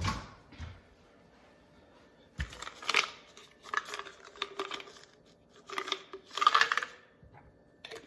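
Repeated clinks and scraping of a utensil against a bowl in several short bursts, breaking a supplement down and working it into the dog food.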